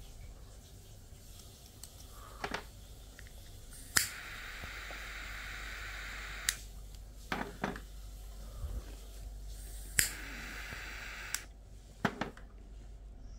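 Butane jet-flame torch lighter clicked on twice, each time hissing steadily, first for about two and a half seconds and then for about a second and a half, as it heats the tip of a Vapman vaporizer. Light clicks and taps of the parts being handled come in between.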